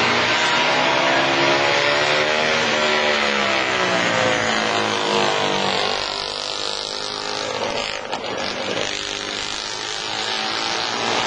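Vintage motorcycle engines at high revs as the bikes ride past, the engine note rising and then falling as they go by. The sound drops to a more distant drone about halfway through and builds again near the end.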